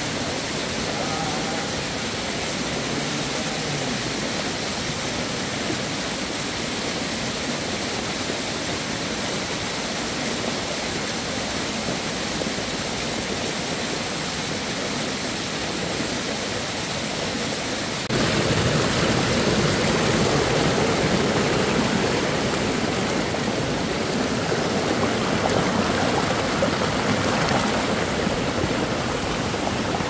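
Small rocky stream running and splashing down a narrow stone channel, a steady rushing of water. About two-thirds of the way in it jumps suddenly louder and fuller, with more low splashing.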